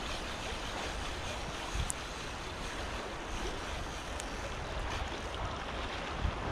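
Steady rush of shallow river current, with wind buffeting the microphone and a couple of faint ticks.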